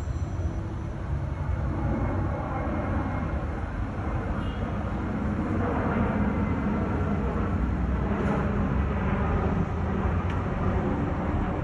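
Jet airliner on approach to land, a steady low rumble of its engines that swells a little about six seconds in.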